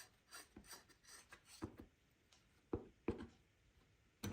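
Faint handling noise from small hand tools and RC parts: scattered light clicks and rubs as a screw is driven to fasten a drive shaft guard, with a few sharper clicks near the end.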